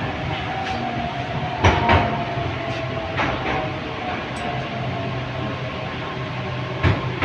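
Running noise inside a 81-722.1 metro car as the train slows into a station: a steady rumble with a faint whine that drops slowly in pitch, and a few sharp knocks, the loudest about a second and a half in and near the end.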